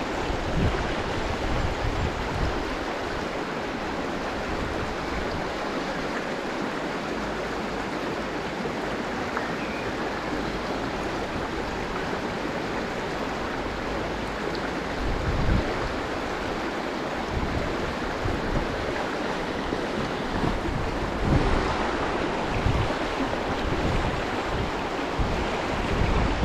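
Fast-flowing river rapids rushing steadily over rocks. Low rumbles of wind buffet the microphone now and then, mostly past the middle and near the end.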